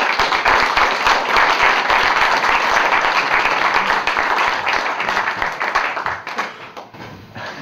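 Audience applauding, starting abruptly and fading away about six to seven seconds in.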